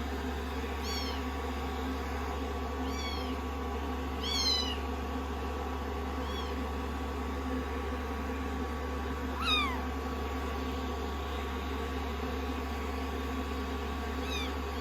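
Very young kittens mewing: about six short, high, thin mews that fall in pitch, the loudest two about four and a half and nine and a half seconds in, over a steady low hum.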